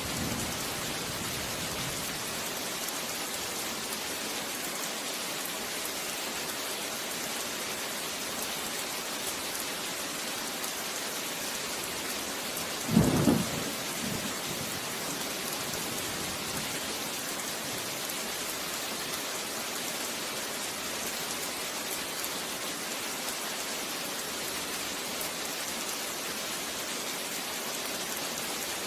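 Steady rain falling, an even hiss throughout. About halfway through comes one short, low rumble of thunder lasting about a second.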